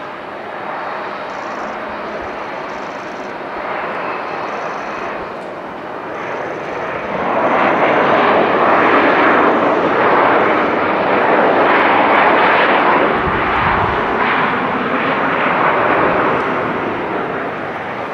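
Jet engines of a Japan Airlines Boeing 737-800 after touchdown, rolling out on the runway. The engine noise swells to a loud, steady rush about seven seconds in, holds for about nine seconds, then eases off near the end.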